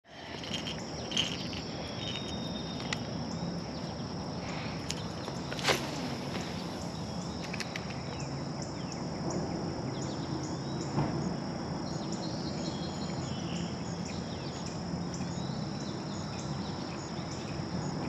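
Evening chorus of crickets and other insects, a steady high trilling, with occasional bird chirps. About six seconds in, a short sound falls steeply in pitch.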